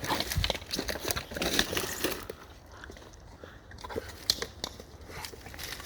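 Dry coconut leaves and brush crackling and rustling, with scattered sharp snaps and clicks; busiest in the first two seconds, then sparser.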